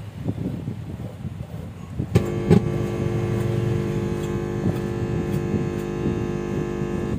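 Loudspeaker on a home-built high-power audio amplifier: a couple of pops about two seconds in, then a steady mains-hum buzz with many overtones. Before the pops there is low, irregular handling rumble.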